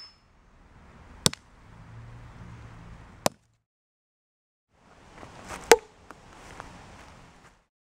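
Sharp knocks and cracks of blows struck at a small plastic Lego motor: two hard impacts in the first three and a half seconds, a second of silence, then a louder crack with a short ring and a few light clicks, over faint outdoor hiss.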